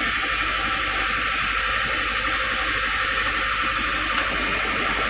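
Steady hissing noise with a low hum beneath it, unchanging throughout.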